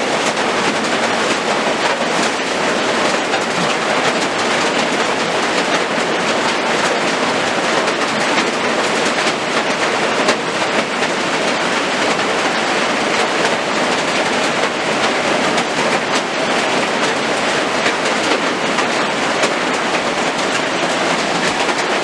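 Heavy rain pouring down in a steady downpour, a loud, even hiss of falling water.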